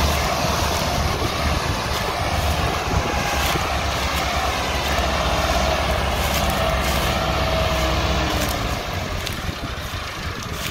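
Several Massey Ferguson 385 tractors' diesel engines running hard under load, hauling an overloaded sugarcane trolley, growing a little quieter near the end.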